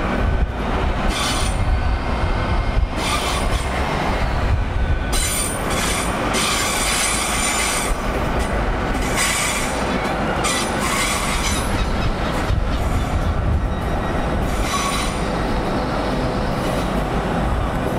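GWR Intercity Express Train (Class 800-series) running through the station pointwork, its wheels squealing over a steady rumble.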